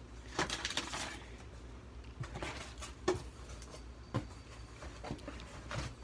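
Cardboard boxes being handled: rustling and scraping as a Nike shoebox is pulled out of a cardboard shipping box. There is a cluster of scrapes about half a second in and single sharp knocks a few seconds later.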